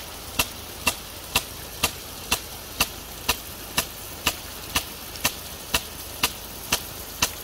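Rain gun impact sprinkler running: its impact arm strikes the body with a sharp click about twice a second, steadily, over the steady hiss of the water jet.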